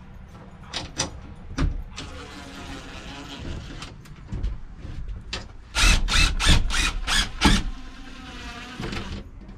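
Cordless power tool whining in short runs while the van's subwalls are fitted, with a few single clicks early on and a run of about six loud sharp knocks in the middle.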